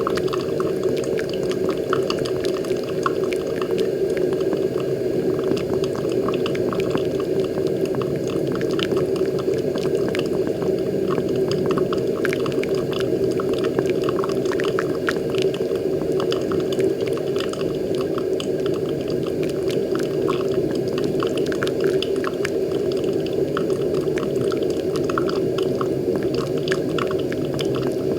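Moccamaster KBGV Select drip coffee maker brewing, its hot water pouring from the showerhead onto the coffee grounds. It makes a steady rush of water with many small, irregular pops and ticks.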